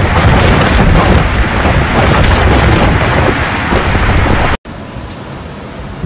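Blizzard wind gusting hard, rushing and rumbling loudly on the microphone. About four and a half seconds in it cuts off abruptly to a quieter, steady wind rush.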